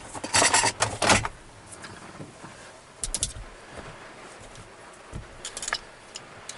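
Clatter and knocks of tools and parts being handled and put away, loudest in the first second, with smaller clusters of clicks about three and five and a half seconds in, over a steady hiss of heavy rain.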